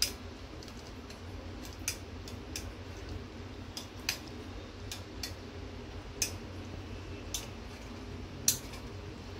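Steel spoon clinking and scraping against a small stainless steel coffee strainer while pressing the whey out of lemon-curdled milk curds: about ten sharp, scattered metal clicks, over a low steady hum.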